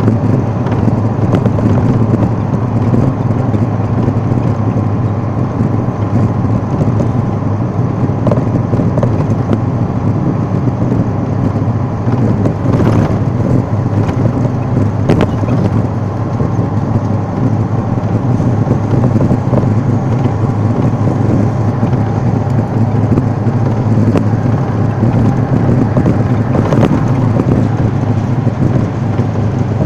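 Steady road and engine rumble inside a moving vehicle travelling at highway speed, a constant low drone with other traffic passing close alongside.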